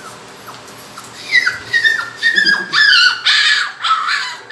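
Puppies whining and yelping in a series of short, high-pitched cries that start about a second in.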